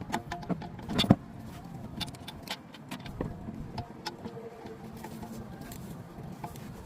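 Scattered clicks and knocks of hand tools and metal parts being handled during an oil change, with one louder knock about a second in, over a low steady hum.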